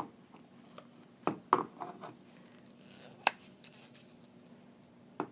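Plastic parts of a water cooler cap assembly being handled and fitted together: a few sharp clicks and taps spread over several seconds, with quiet between them.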